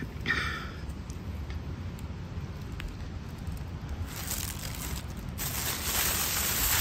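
Rustling of movement through grass and pine-needle litter over a low wind rumble, with a short squeak just after the start. About four seconds in it turns into a louder steady rustling hiss.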